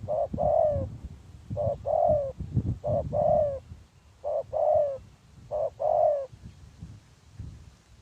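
A spotted dove cooing: a series of two-part calls, each a short note followed by a longer falling coo, repeated about every 1.2 seconds and stopping a little after six seconds. A low rumble sits beneath the calls.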